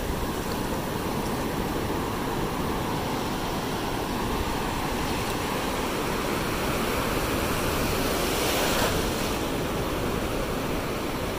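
Ocean surf washing steadily on the beach, with a wave swelling louder briefly about nine seconds in.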